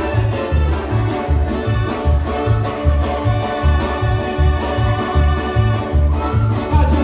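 Live dance band playing: sustained electronic organ-style keyboard chords over a steady bass beat of about two beats a second, through the hall's PA speakers.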